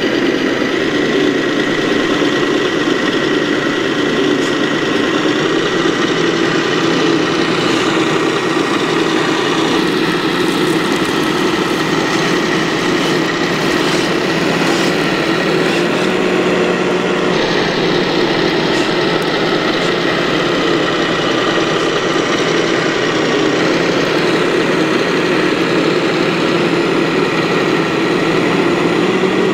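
Simulated diesel truck engine from an RC truck's add-on sound module, running steadily at about idle through the truck's small speaker.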